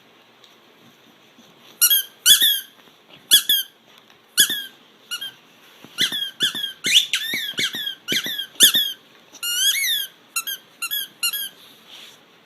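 A small animal making a series of short, high-pitched squeaks with quick pitch bends, some coming in rapid runs, starting about two seconds in.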